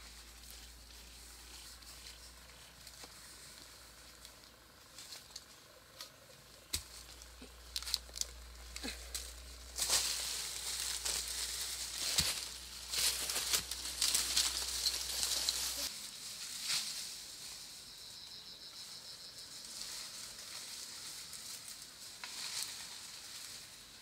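Dry bamboo leaves and stalks rustling and crackling, with scattered sharp snaps, busiest for several seconds in the middle. A faint steady high whine comes in for a couple of seconds after the rustling eases.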